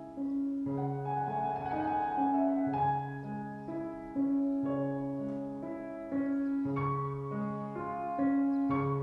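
Background piano music: held notes over a low note struck about every two seconds.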